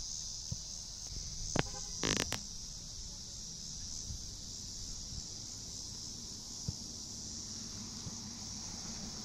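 Steady high-pitched drone of summer insects. A few sharp knocks sound about one and a half to two and a half seconds in, as a soccer ball is kicked toward goal.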